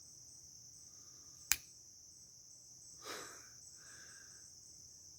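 Crickets chirping steadily in the background, with one sharp click about a second and a half in.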